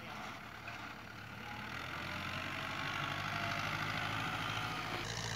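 Ghazi tractor's diesel engine running steadily while it pushes soil with its front blade, growing louder over the first few seconds.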